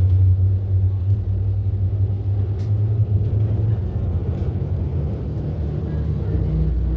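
Road vehicle engine running with a steady low rumble, heard from inside the vehicle while it is travelling; the drone eases slightly about four seconds in.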